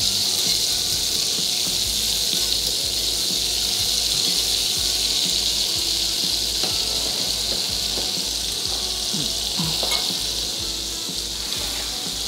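Butter sizzling steadily as it melts and browns in a pan, the first stage of a roux, stirred with a wire whisk with a few faint ticks.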